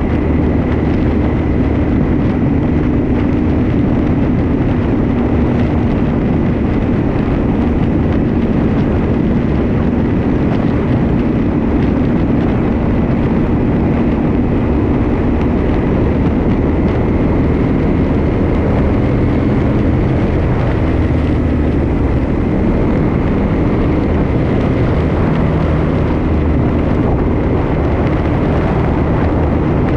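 Vehicle engine running at a steady cruise, mixed with road and wind noise, with a faint steady high whine over it.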